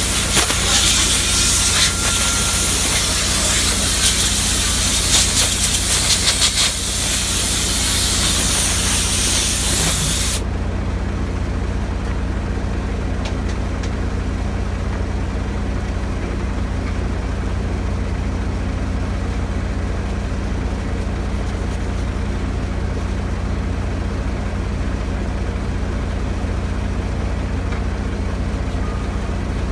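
Compressed air hissing loudly and steadily for about ten seconds, then cutting off suddenly, over an engine running steadily with a low hum.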